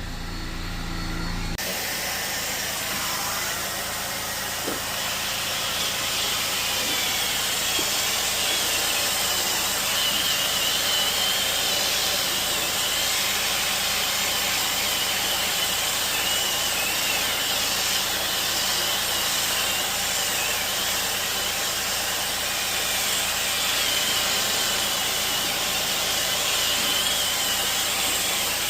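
Cleaning equipment running with a steady rushing noise that comes on abruptly about a second and a half in.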